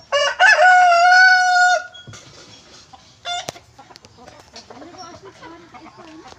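Rooster crowing once: a few short rising notes, then one long held note for over a second. A short call follows about three seconds in, then soft clucking.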